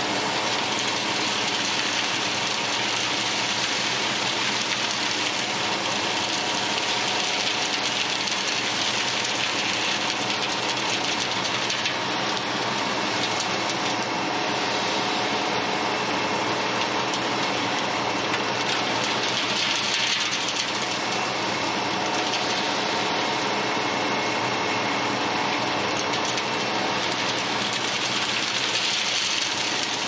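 An engine idling steadily: a constant hum with a hiss above it.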